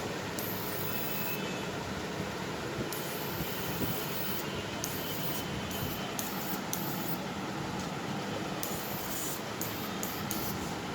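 A 1000 W electric fish-shocking inverter running on test, with a steady noisy hum and a faint high whine that comes and goes.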